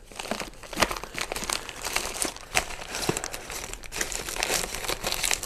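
Rummaging through a box of RC crawler parts: packaging crinkling and small parts clicking and rattling, in irregular bursts.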